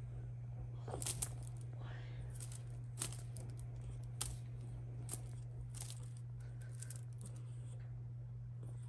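Sharp light clicks and rustles as a British shorthair cat swats with its paw at a toy, coming roughly once a second for the first several seconds and then fainter, over a steady low hum.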